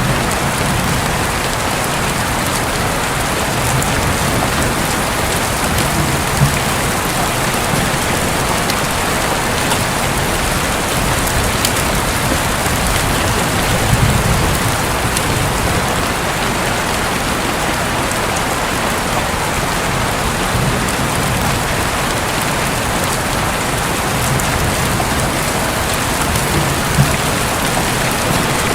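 Steady heavy rain drumming on a roof, with a few single louder drops striking. A low rumble of distant thunder swells about halfway through.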